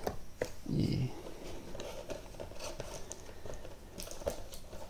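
Small cardboard box being cut open with a small knife and its flaps worked open by hand: scattered scrapes, taps and clicks of cardboard, with a short low sound about a second in.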